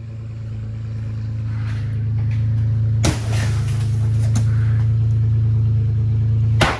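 Two sledgehammer blows on a scrap car body, the first about three seconds in and the second near the end, each ringing briefly. A steady low drone runs underneath and grows slowly louder.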